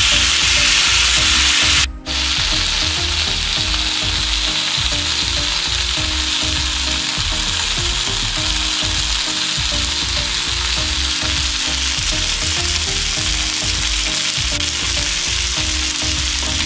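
Chicken tikka skewers sizzling in oil on a hot ridged grill pan, a steady frying hiss as they sear to finish cooking. The sound breaks off for an instant about two seconds in, then carries on.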